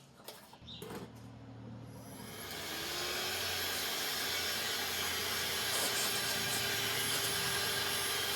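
Dremel rotary tool switched on, its motor whine building and rising in pitch over about two seconds, then running steadily at high speed.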